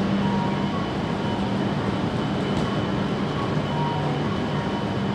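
Steady hum and rumble of a Shinkansen platform, with a low drone from the train standing at the platform and a faint high whine above it.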